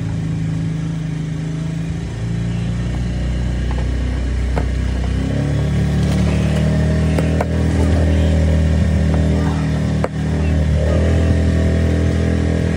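Boat's outboard motor running steadily while cruising. About five seconds in, the engine note changes and gets somewhat louder.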